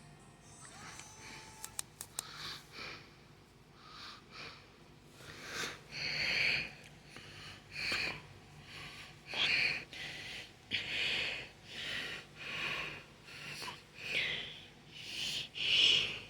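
A person breathing close to the microphone, short hissy breaths about once a second, faint at first and louder from about five seconds in. A few faint clicks near the start.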